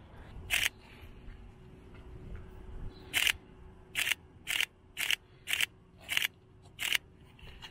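Camera shutter firing single frames, eight sharp clicks: one just after the start, then a run of seven about half a second to a second apart from about three seconds in.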